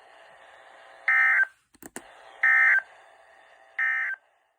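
Weather radio receiver playing the three short bursts of the EAS end-of-message data code (SAME digital tones), evenly spaced about 1.3 s apart, over faint radio hiss. They mark the end of the weekly test broadcast. A couple of brief clicks fall between the first and second bursts.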